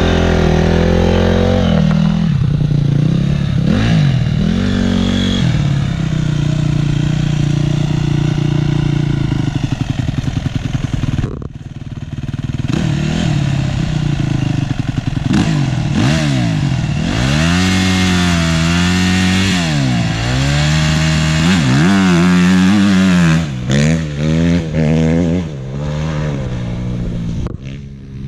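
Motocross bike engine running hard off-road, revving up and falling back over and over as the throttle is worked, with a short drop in level about halfway through.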